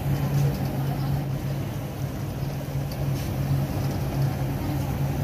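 Steady low mechanical hum, like a running engine, with a few faint light clicks.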